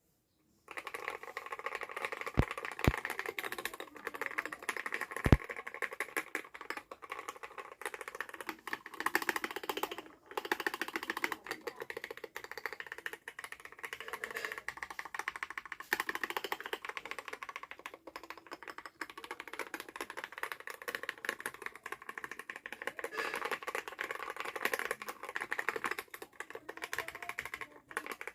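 Fast, continuous typing on an Akko MOD005 aluminium mechanical keyboard, with a few heavier key strikes in the first several seconds.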